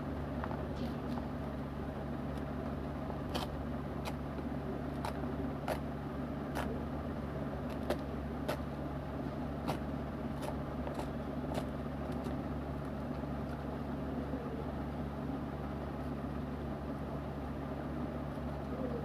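Thin paper tear-off strip being pulled away by hand along the perforated edge of a mailer, giving short, sharp, irregular clicks and ticks, over a steady low background rumble and hum.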